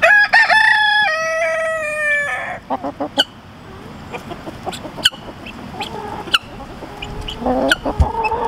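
A rooster crows once at the start, a single call of about two seconds that steps down in pitch. Then the flock of chickens clucks softly while feeding, with a few sharp taps in between.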